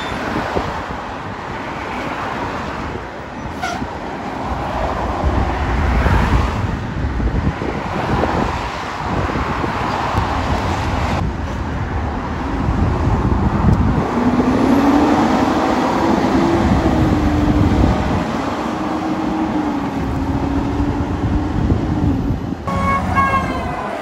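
Road traffic passing, cars and trucks going by. A vehicle's engine drone wavers up and down through the middle stretch, and a short steady horn tone sounds near the end.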